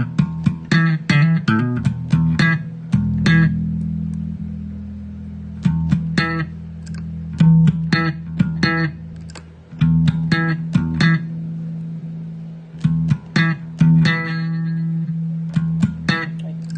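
Electric bass guitar played through a Zoom MultiStomp MS-60B multi-effects pedal: runs of quick notes with sharp, clicky attacks, broken by held notes that ring out for a second or two.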